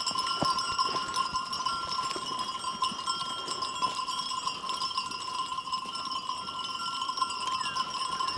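Many sheep bells ringing and jingling without pause from a flock of sheep moving and grazing.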